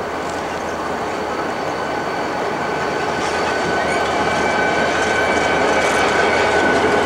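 CSX diesel freight locomotives rolling past over a bridge, their engines running and growing steadily louder as the lead units come by. A steady high whine runs through it, strongest in the second half.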